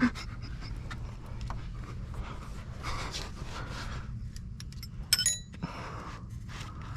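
Hard breathing and small handling noises from a person working under a car, over a steady low hum, with a short metallic clink and rattle about five seconds in.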